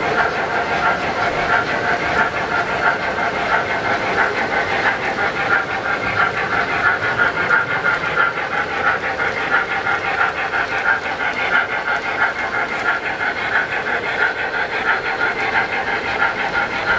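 O-scale model trains running on a layout: a steady mechanical whir of locomotive motors and gearing, with fine rapid clatter of wheels on track.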